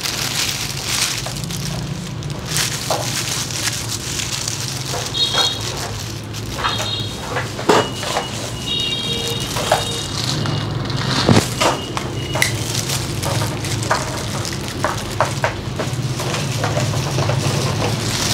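Thin disposable plastic gloves crinkling and wet, perm-solution-soaked hair squishing close to the microphone as hair is wound onto perm rods, with scattered sharp clicks over a steady low hum.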